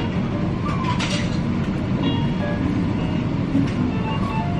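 Steady restaurant din with short, high clinks scattered through it.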